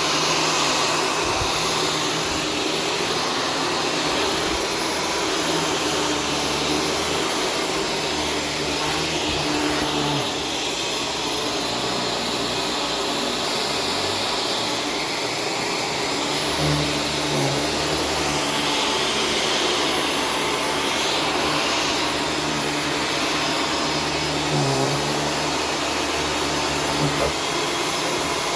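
Shark self-cleaning vacuum cleaner running steadily while vacuuming a floor.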